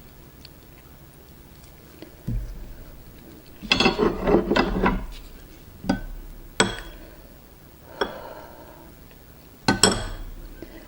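Raw oyster shells clicking and clinking against a plate or dish, in a dense clatter about four seconds in and then a few single sharp clicks.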